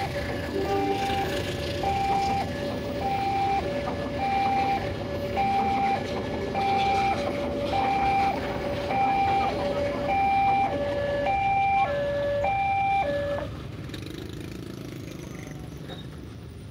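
Railway level-crossing warning alarm sounding a two-tone electronic chime, high and low notes alternating about once a second, over the rumble of a passing train. The alarm cuts off about 13 seconds in, leaving quieter street traffic noise.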